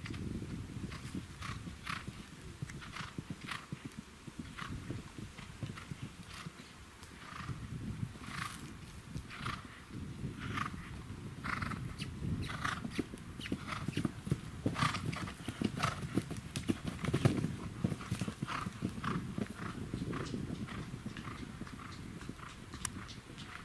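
Horse cantering on grass, its hoofbeats and sounds of effort coming in an even rhythm with each stride, a little under two a second.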